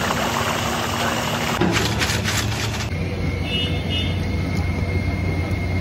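Hot oil sizzling in a large wok as potatoes are fried, over a steady low rumble of street traffic. About a second and a half in, a few short scraping strokes come through, and about three seconds in the sizzle drops away, leaving mainly the rumble.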